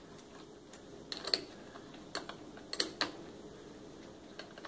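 A wrench clicking against a car battery's terminal clamp bolt as the clamp is tightened. It makes a handful of short, sharp, irregularly spaced clicks.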